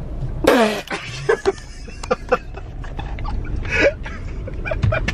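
A falling cry, then scattered bursts of laughter from people inside a car, over the steady low rumble of the car driving.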